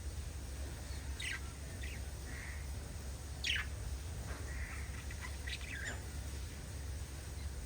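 Pet lovebirds giving a few short, sharp chirps that sweep downward in pitch, spaced out with pauses. The loudest comes about three and a half seconds in, with softer calls in between and a small cluster near the end. A steady low hum runs underneath.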